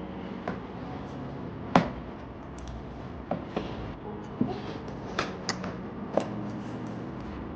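Packaging and kit items being handled: scattered sharp clicks and knocks at irregular intervals, the loudest about two seconds in.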